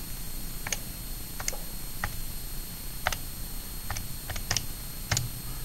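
Plastic keys of a TI-84 Plus Silver Edition graphing calculator being pressed one at a time, about seven or eight separate clicks at uneven spacing, as a multiplication is keyed in.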